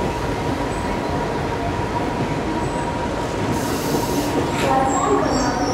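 ICF passenger coach wheels running on the rails with a steady rumble; about four and a half seconds in, high squealing tones from the wheels set in.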